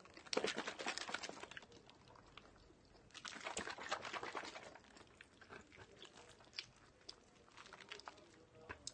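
Close-miked chewing of a spicy pork-floss bun: two spells of crunchy, crackling mouth sounds, the first right at the start and the second about three seconds in, with softer scattered clicks between.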